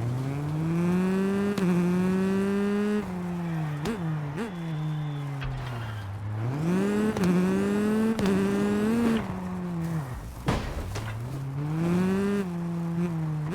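Rally car engine sound revving up through the gears, its pitch climbing and stepping down at each shift, then dropping away on lift-off, three times over. It has two quick throttle blips about four seconds in and a short rushing noise about three-quarters of the way through.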